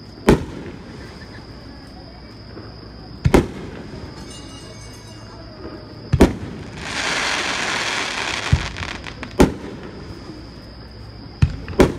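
Aerial firework shells bursting: a series of sharp booms roughly every three seconds, the last two close together near the end. Around the middle comes a couple of seconds of hissing.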